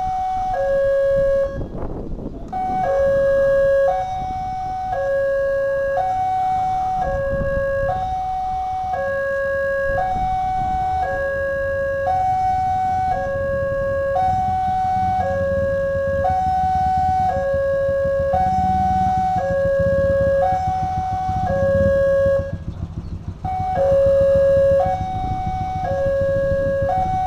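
Railway level-crossing warning alarm sounding, warning that a train is approaching: an electronic two-note signal, a higher note then a lower one, repeating about every two seconds.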